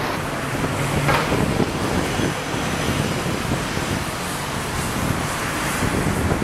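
Steady road traffic noise, an even rush with no clear breaks.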